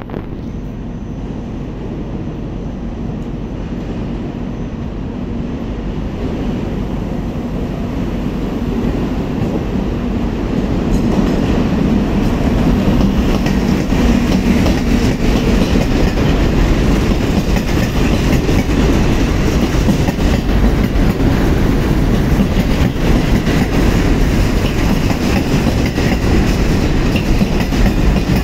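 Electric freight locomotive hauling a long train of container wagons past at close range. The sound grows louder over the first twelve seconds or so as the train draws near, then holds steady as the container wagons roll by on the rails.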